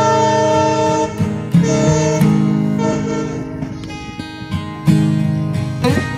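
Instrumental background music, a run of sustained pitched notes that change every half second or so.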